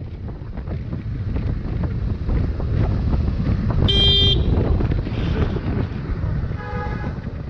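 Vehicle driving with heavy rumbling road and wind noise on the microphone, a short car horn toot about four seconds in and another brief tone near the end.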